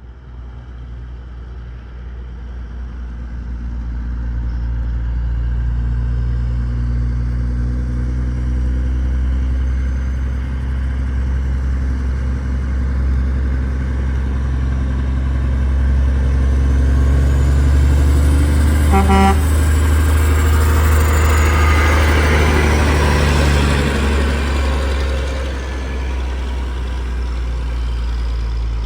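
Heavy diesel vehicle engine running close by, swelling over the first few seconds and holding loud, with one short horn toot about two-thirds of the way in.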